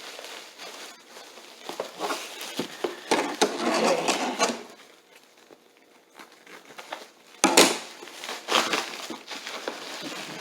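Wrapping paper crinkling and rustling in uneven bursts as a packed item is unwrapped by hand, quieter for a moment midway, with a sharp knock about seven and a half seconds in.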